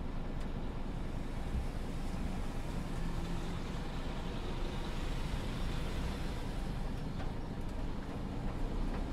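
Scania P250 truck's diesel engine running steadily at low speed, a low rumble heard from inside the cab.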